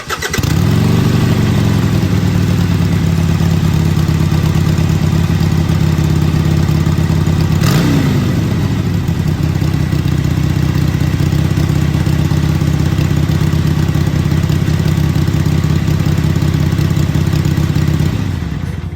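Harley-Davidson Sportster 883's air-cooled V-twin starting up with a brief flare in revs, then idling steadily. One short throttle blip about eight seconds in, then the engine is switched off near the end and winds down.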